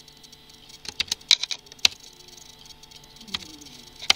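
Computer keyboard typing: about half a dozen separate key presses, irregularly spaced, with a pause of about a second and a half in the middle.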